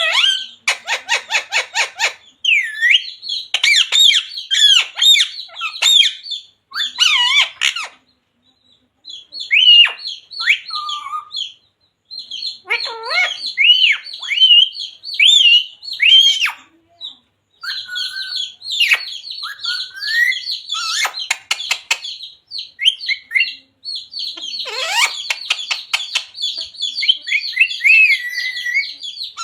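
Pet talking parrot squawking and chattering: repeated harsh calls and sliding whistles, broken by bursts of rapid clicking, with a couple of short pauses.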